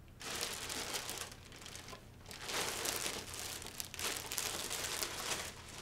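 Clear plastic bag crinkling as clothes are stuffed into it. It comes in two long spells with a short pause about two seconds in.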